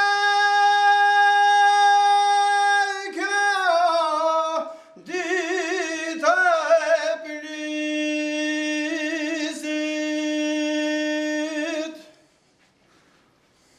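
A man sings an unaccompanied Albanian highland song in a high voice. He holds long steady notes, with wavering ornaments between them, and the singing stops about twelve seconds in.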